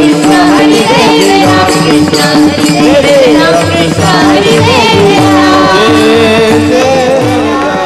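Marathi kirtan devotional music: voices singing a chant over a harmonium, with drum beats and jingling hand cymbals, fading out near the end.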